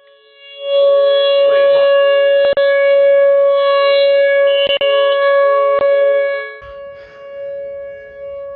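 Outdoor tornado warning siren sounding a steady tone. It swells loud about a second in and drops back after about six seconds, and three brief clicks are heard during it.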